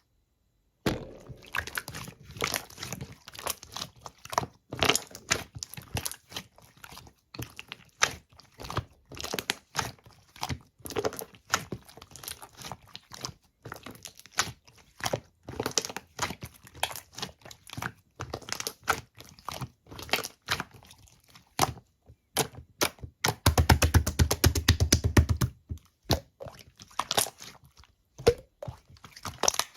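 Slime being squeezed and poked by hand, making a dense run of crunchy clicks and pops. About three quarters through comes a two-second burst of rapid clicking.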